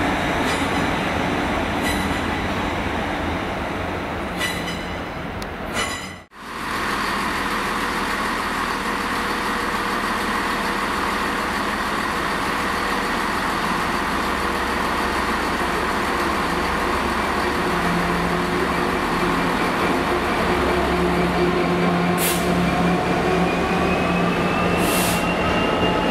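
A GWR Hitachi Intercity Express Train running past on the rails, with a few clicks from the wheels over rail joints. It cuts off abruptly about six seconds in. Then a Class 66 diesel locomotive hauling a freight train of covered steel-coil wagons passes with a steady engine rumble and wagon noise, with a couple of sharp clanks and a rising tone near the end.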